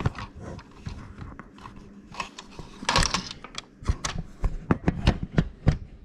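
Handling noise from a plastic Nerf blaster being moved and turned: light rubbing and a run of short sharp clicks and knocks, bunched about three seconds in and coming quickly one after another in the second half.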